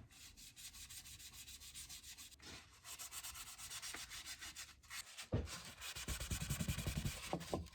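Paste wax being rubbed and buffed onto the finished surface of an elm wooden box in quick back-and-forth strokes, growing louder and heavier about five seconds in.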